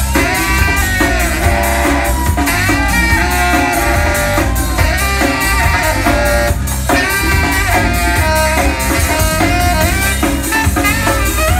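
Live band playing a song, with a drum kit keeping a steady beat under bass and a saxophone line.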